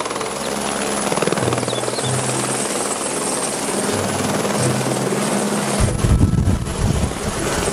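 Helicopter running steadily, its rotor chop and engine noise continuous, with heavier low thumping from about six seconds in.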